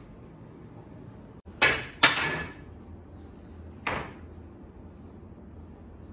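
Three sharp knocks on a kitchen work table, each with a short ringing tail: two loud ones close together about a second and a half in, and a softer one near four seconds.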